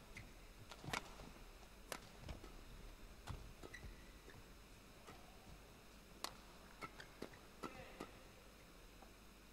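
Badminton rally: rackets striking the shuttlecock give sharp cracks about every one to three seconds, the loudest about a second in. Faint shoe squeaks on the court floor come in between.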